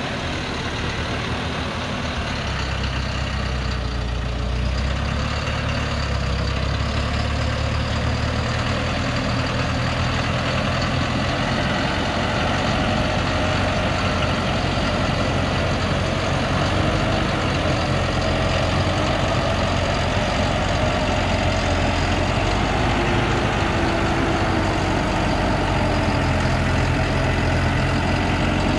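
Engine of a laden timber truck running at low revs as the truck crawls along slowly, getting gradually louder as it draws near and passes.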